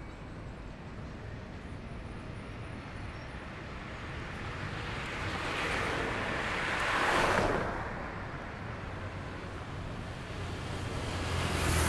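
Cars passing on a city street: road noise swells as one car approaches and passes close by about seven seconds in, then fades. Another vehicle approaches near the end, its engine hum growing louder.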